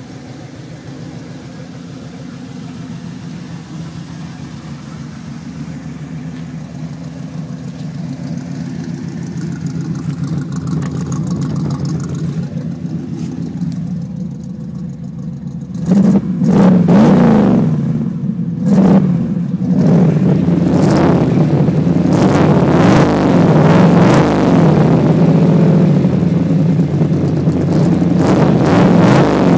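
Modified 355-cubic-inch small-block V8 breathing through side lakepipe exhausts. It idles steadily for about half the time, then is blipped loudly several times and revved repeatedly at higher speed.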